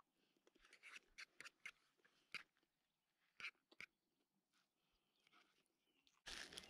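Faint, scattered clicks and short scrapes of a metal fork against a plate. Near the end a much louder rustling noise starts suddenly.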